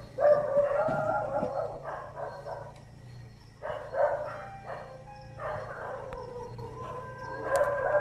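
Neighbourhood dogs howling and barking: long wavering howls broken by shorter barks, the last howl settling onto a steady pitch near the end.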